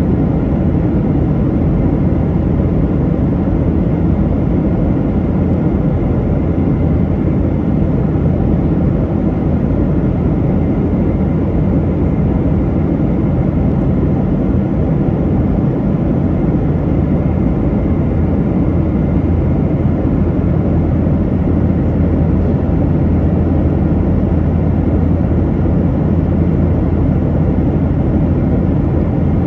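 Steady in-flight cabin roar of a Boeing 737-900 airliner: engine and airflow noise, even and unchanging, heaviest in the low range.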